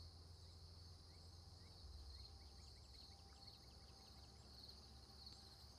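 Faint outdoor insect chorus: crickets trilling steadily, with a run of short quick chirps in the first few seconds.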